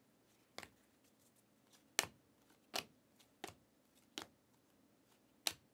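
Panini Prizm basketball cards being flipped off a stack by hand, each card giving a short, sharp snap; about six snaps at uneven intervals of roughly a second.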